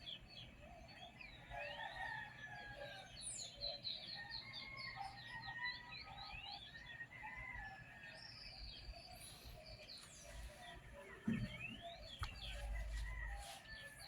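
A faint morning chorus of several small birds chirping, trilling and calling over one another. A single low thud comes about eleven seconds in, followed by a brief low rumble.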